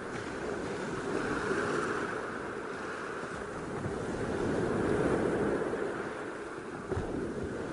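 Ocean surf breaking and washing up onto a sandy beach, a steady rush that swells and eases with the waves, loudest about a second and a half in and again about five seconds in.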